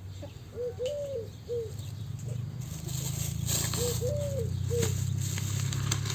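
Eurasian collared dove cooing its three-note call, short-long-short, twice. A low steady hum comes in after about two seconds, with a few light clicks.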